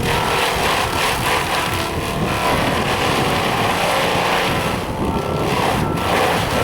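Excavator with a Seppi Star FC hydraulic mulcher attachment running: a loud, steady, dense machine noise.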